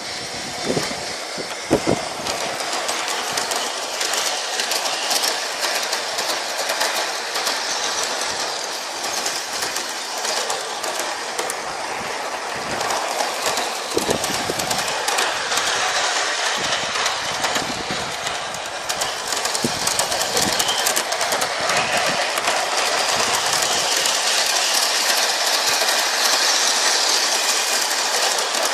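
Bachmann Big Hauler 4-6-0 G-scale model locomotive and its train running on garden railway track: a steady rolling rattle of wheels and gearing on the rails, with clicks as the wheels pass over rail joints, a little louder near the end.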